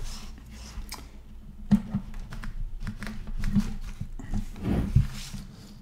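Plastic connector and sleeved cable of a power-supply lead being handled on a desk: irregular small clicks and taps, with the loudest knock about five seconds in.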